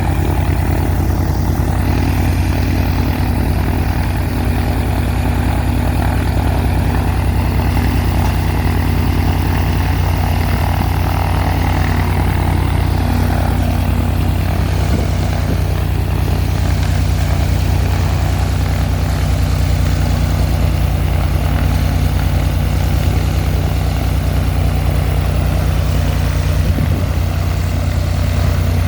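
Cessna 182's six-cylinder piston engine and propeller running steadily on the ground, on its first run-up after a new exhaust system and a new cylinder were fitted.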